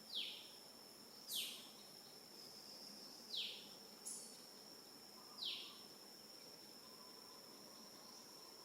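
Steady high insect drone, with a bird repeating a short falling call four times over the first six seconds or so.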